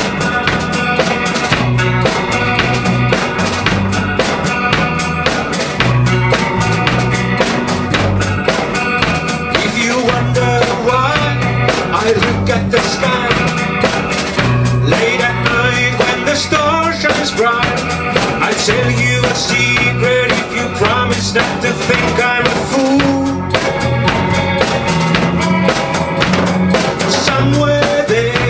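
Live rock trio playing: a Ludwig drum kit keeps a steady beat with bass drum and snare, under electric bass and electric guitar, with bending guitar lines from about ten seconds in.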